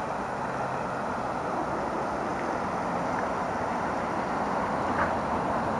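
ER2 electric train approaching while still far off: a steady, even running noise that grows slightly louder, with a faint click about five seconds in.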